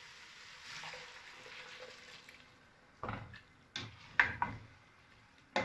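A spoon knocking and scraping against a cooking pot as greens in water are stirred: a soft hiss at first, then a run of sharp clinks and knocks from about halfway through.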